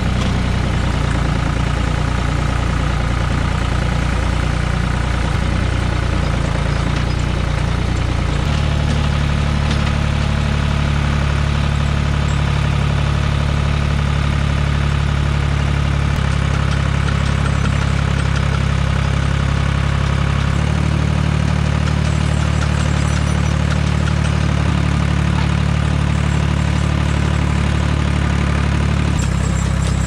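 Tractor engine running steadily as it drives through snow, heard from the seat. Its note changes about a third of the way in and again about two-thirds in as the engine speed is changed.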